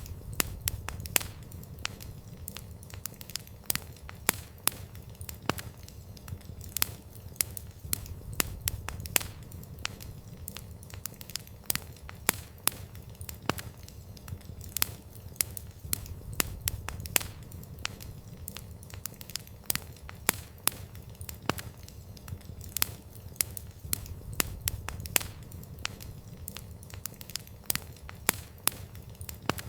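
Wood campfire crackling, with frequent irregular sharp pops and snaps over a low steady rumble.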